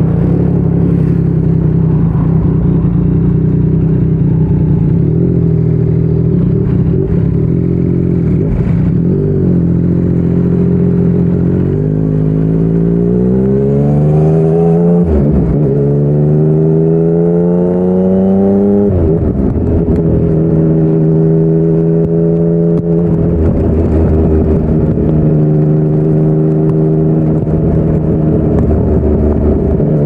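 Yamaha MT-09's inline three-cylinder engine through a Yoshimura R55 slip-on exhaust, ridden on the road. It holds a steady cruise, then accelerates about twelve seconds in: its pitch climbs, drops sharply at an upshift, climbs again and drops at a second upshift. It settles back to a steady cruise and starts to rise again at the very end.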